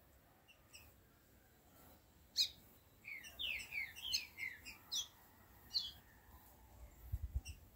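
Caged chiviro verde singing: a sharp high note, then a quick run of about six downward-slurred whistles mixed with sharp high notes, and a last note about a second later.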